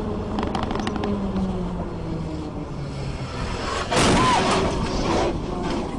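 Vehicle driving at speed, its engine and road noise with a hum falling in pitch. About four seconds in comes a sudden loud, rough rumbling crash lasting over a second as the vehicle runs off the road onto rough field ground.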